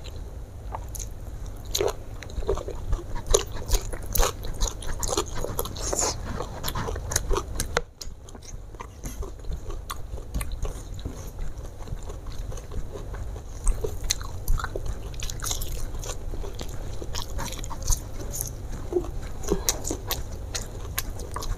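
Close-miked chewing and crunching of crispy fried chicken, rice and raw vegetables, with many sharp, crackly bites and a brief pause about eight seconds in.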